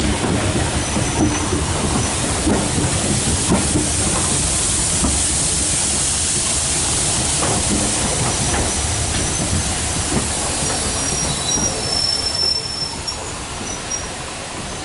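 Steam-hauled train passing: the carriage wheels rolling along the rails, with a few brief high squeals in the second half, fading away near the end.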